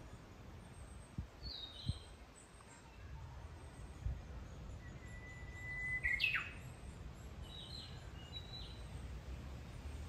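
Japanese bush warbler (uguisu) singing: one long held whistle about five seconds in, ending in a quick sweeping flourish, the bird's 'hoo-hokekyo' song. Shorter high chirps come before and after it, over a low rumble.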